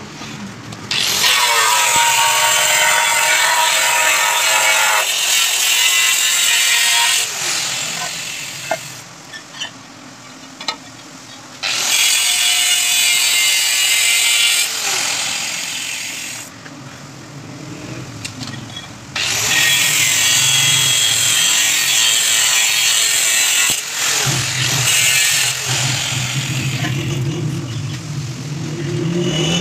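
Handheld angle grinder with a diamond disc cutting marble floor tiles: three long cuts, each with the motor winding up at the start and down at the end, with quieter gaps and a few clicks between them.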